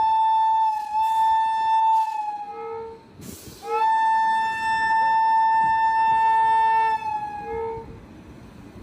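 Train horn sounding two long, steady blasts, each swooping up to pitch as it starts, the second a little longer than the first.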